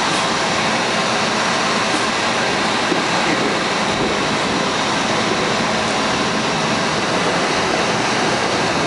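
1965 PA-1 PATH subway car running through a station, heard from on board: a steady, even rumble and hiss of wheels on rails and running gear.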